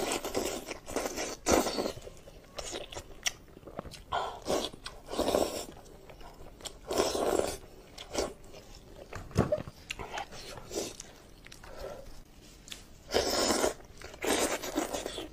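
Close-up eating sounds of a person chewing and biting meat pulled from a braised sheep head: irregular wet chewing with sharp clicks and short noisy bursts every second or two.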